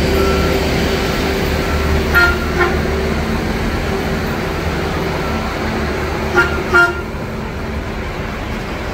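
Two pairs of short horn toots from rail equipment, about two seconds in and again about six seconds in, over a steady idling diesel rumble. A backup beeper beeps in the first couple of seconds.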